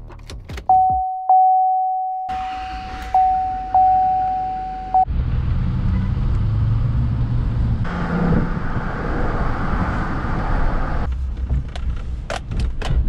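GMC Sierra's warning chime rings at one steady pitch, struck again a few times. About five seconds in, it cuts off as the truck's Duramax turbodiesel V8 starts and runs, its sound swelling for a few seconds around the middle. A few sharp clicks come near the end.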